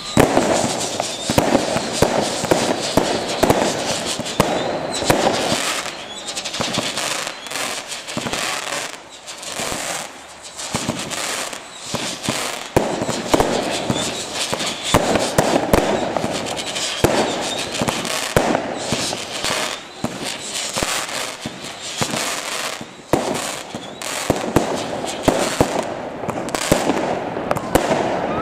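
Aerial fireworks display: shells bursting one after another in a dense run of bangs and crackling.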